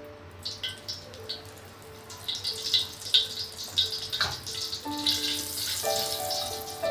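Background music with a simple melody of held notes, over irregular light clicks and, near the end, a brief high hiss of kitchen work.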